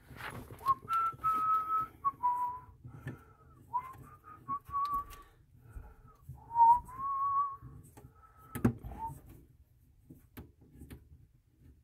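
A person whistling a slow tune of held, sliding notes, with a few clicks and knocks as a braided supply line is threaded onto the sink's shut-off valve; one sharp knock comes about three-quarters of the way through.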